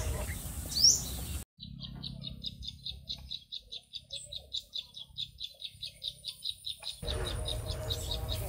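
Birds chirping: a short, high rising chirp about once a second, then a fast series of short high notes, about six a second. A rushing background cuts out suddenly about a second and a half in and comes back near the end.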